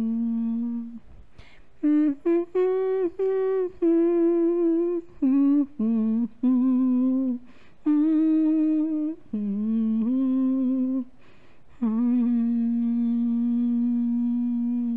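A woman humming a slow wordless melody unaccompanied: a series of held notes with short breaths between them, ending on one long held note.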